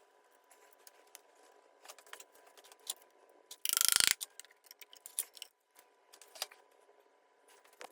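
Hand tools and small metal parts clicking and clinking while the valve cover is taken off a Ford Model A's side-valve four-cylinder engine, with one loud, rapid rattle lasting about half a second around four seconds in.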